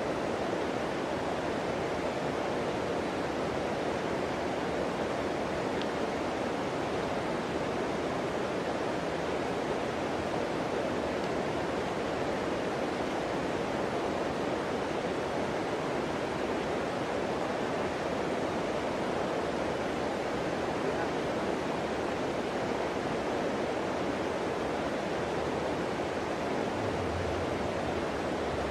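Flowing river water rushing steadily, an even noise with no breaks.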